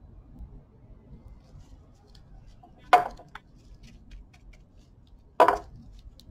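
Two sharp clinks, about two and a half seconds apart, of a spatula knocking against a beaker as thick serum is scraped out into a cosmetic jar, with faint small ticks between.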